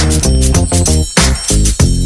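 Background music with a heavy beat and deep bass.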